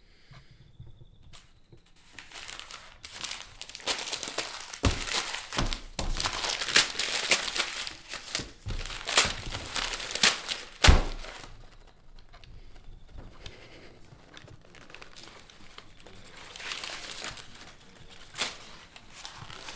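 Sheets of paper being torn up and crumpled by hand: a dense run of ripping and rustling, with two dull thumps. The rustling thins out after about twelve seconds and flares up again briefly near the end.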